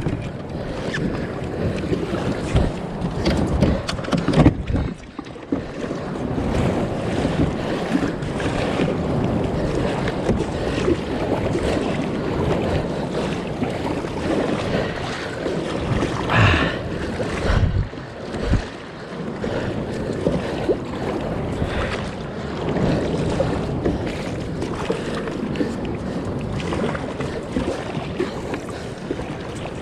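Sea water splashing and sloshing around a kayak, with wind buffeting the microphone and occasional thumps.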